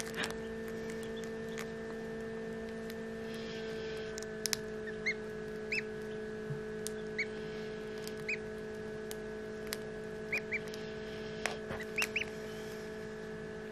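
Hatching duckling giving short, weak peeps, scattered about one a second from about four seconds in, over a steady hum. A few sharp clicks as bits of shell are picked away.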